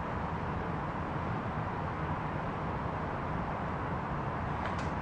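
Steady background noise, a low hum under an even hiss, with two light clicks near the end.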